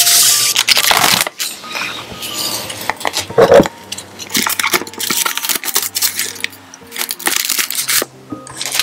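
Thin plastic wrapping crinkling and rustling as it is handled, with sharp clicks and taps of a clear acrylic case. Quiet background music plays underneath.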